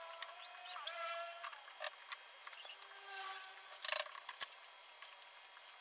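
Light clicks and taps of hands taking apart an LG 22LN400 LED TV panel, handling its circuit board, cables and frame, with a sharper cluster of knocks about four seconds in. Faint held tones sound in the background.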